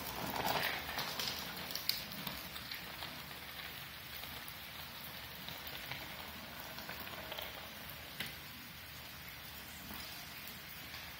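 A downpour of rain falling steadily onto a puddled concrete driveway and lawn.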